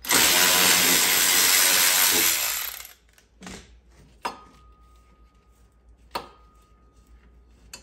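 A power tool runs for about two and a half seconds, backing out a fastener on the ATV's footwell brace, then cuts off. A few light metal clinks follow, two of them leaving a faint ringing tone.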